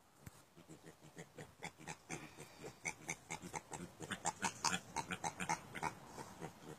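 Vietnamese pot-bellied pigs grunting in a quick run of short grunts, about four a second, growing louder toward the middle and easing off near the end.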